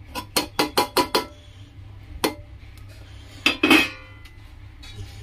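Metal plate knocked against the rim of a pressure cooker to shake chopped ginger into it: a quick run of about six metallic clinks in the first second or so, a single clink about two seconds in, and a louder ringing clatter about three and a half seconds in.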